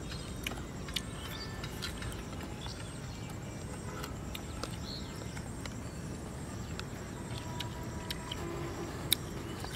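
Steady low outdoor rumble with scattered small clicks and crunches of people chewing raw guava bhorta.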